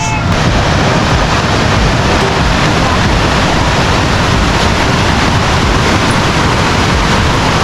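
Water pouring over a waterfall dam and rushing into the river below, a loud, steady rush.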